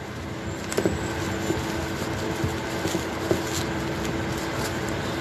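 Light rustling and a few small clicks as a buckled heeled sandal is handled and unwrapped from its white wrapping, over a steady hum with one held tone.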